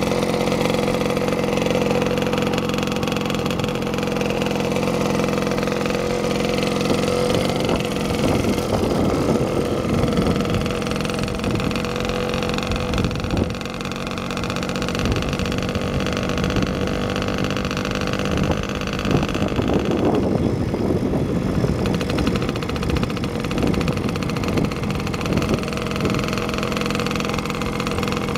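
Engine of a moving motor vehicle running steadily, with scattered knocks and rattles through the middle of the stretch.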